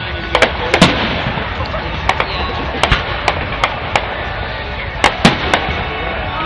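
Fireworks display: a dozen or so sharp bangs and reports at irregular intervals, the loudest about a second in and around five seconds in, over a steady background of crowd noise.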